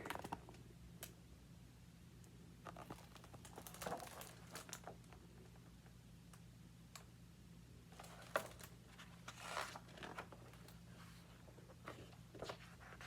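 Near silence over a steady low electrical hum, with scattered faint rustles and clicks of a paper picture book being held and handled.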